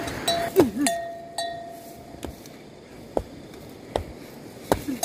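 Sharp metallic clinks and knocks, about one a second, some leaving a short ringing tone, with a brief wavering squeak about half a second in.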